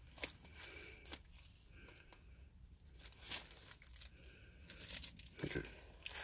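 Faint rustling and crinkling of Bible pages being turned, with scattered small clicks.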